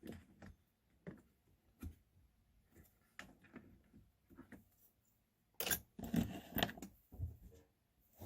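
Light clicks and clinks of metal drill bits being handled and pulled from a bit case, with a louder stretch of rattling clatter a little past halfway.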